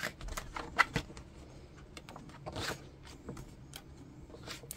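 Pages of a paperback book being turned and handled: soft paper rustles and light flicks, with one longer swish of a page about two and a half seconds in.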